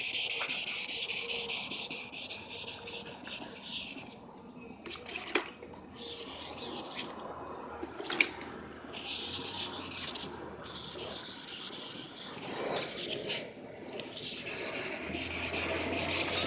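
1000-grit sandpaper rubbed back and forth by hand over a plastic headlight lens, wet-sanding off the hazy, yellowed surface. A steady scratchy hiss that stops briefly a few times, around four seconds in and again near fourteen seconds, as the strokes pause.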